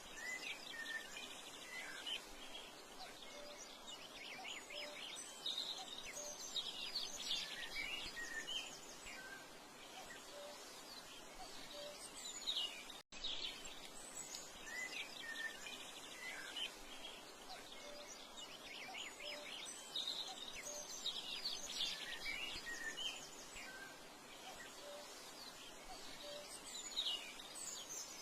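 Several small birds chirping and trilling over a steady background hiss. The same stretch of about 13 seconds plays twice, with a brief dropout between the two.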